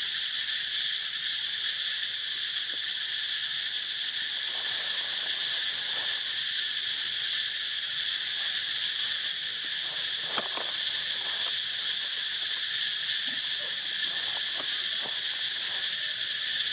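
Steady, unbroken chorus of insects, a continuous high-pitched buzz that holds an even level throughout. A few faint short clicks or rustles come about ten seconds in and again near the end.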